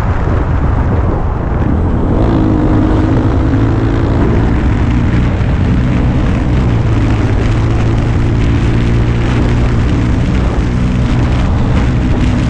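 Motorcycle engine running steadily under way, its note shifting a little as the throttle changes, with wind rushing over the microphone.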